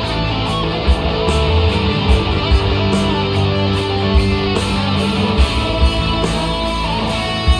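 Southern rock band playing an instrumental stretch live: electric guitars holding and bending notes over a drum kit, with kick-drum hits and steady cymbal strokes. No singing.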